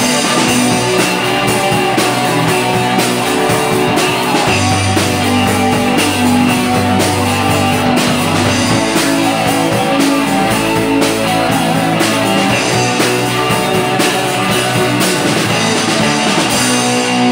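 Live rock band playing an instrumental passage: electric guitar, keyboard and drum kit over a steady beat, with no singing.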